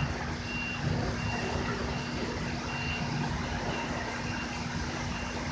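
A faint high beep repeating about every three-quarters of a second, over a steady low hum and rumble.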